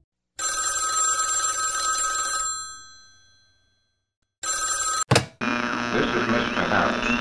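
Old desk telephone bell ringing. One ring of about two seconds fades away, and after a pause a second ring is cut short by a click as the receiver is lifted. A steady hum on the line follows.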